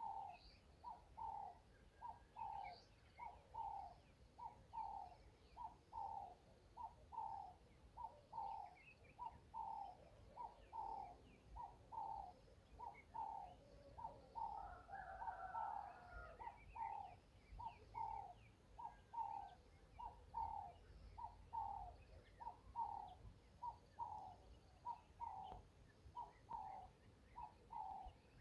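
A bird repeating one short call over and over, about two notes a second, faint, with other scattered bird chirps and a brief burst of chatter midway.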